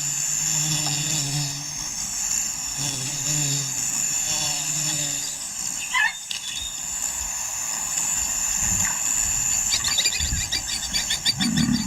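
Wildlife ambience: a steady high insect drone, a short call about six seconds in, and rapid high chirping from about ten seconds in, over low held tones.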